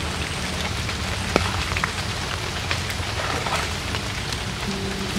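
Steady rain falling on the river and the surrounding leaves: an even hiss with scattered sharper drop ticks.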